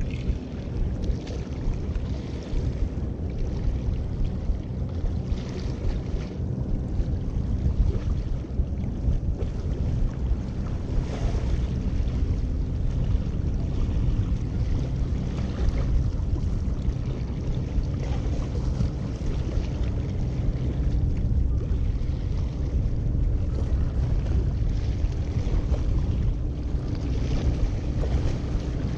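Wind buffeting the microphone and small waves washing against the rocks of a jetty, with a steady low hum underneath and a few louder washes of water.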